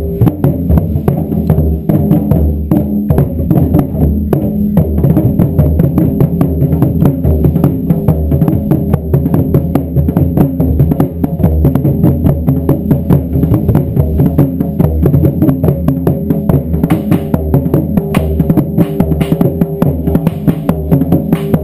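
Taiko drum ensemble playing a fast, steady, unbroken beat: many drums struck hard with wooden sticks, deep in tone, with dense rapid strikes layered over one another.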